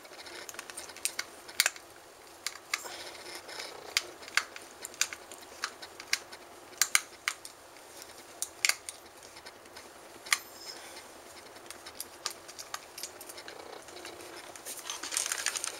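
Irregular small clicks and taps of a screwdriver and hard plastic as screws are taken out of an Xbox 360 wireless controller's case.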